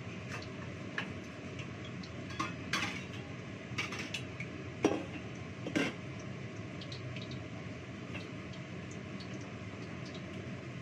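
Dishes and metal utensils clinking and knocking against each other at a kitchen sink, a handful of sharp clinks in the middle, the loudest two about five and six seconds in, over a steady background hiss.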